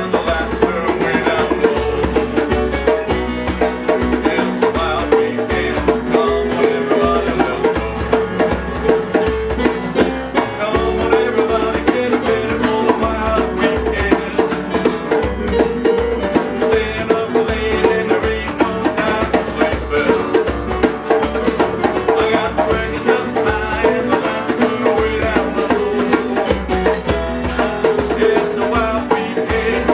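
A band playing a rock and roll song unplugged: fast-strummed acoustic guitars over a steady beat.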